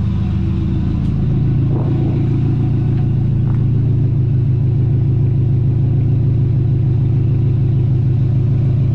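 Turbocharged Subaru Forester's flat-four engine idling steadily with its exhaust switched to loud, a deep, even drone.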